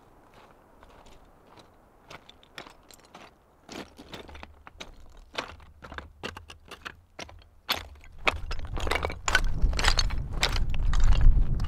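Footsteps on loose, flat shale slabs: the plates clink, crack and shift underfoot, step after step, getting louder and closer from about halfway through. A low rumble builds under the steps in the last few seconds.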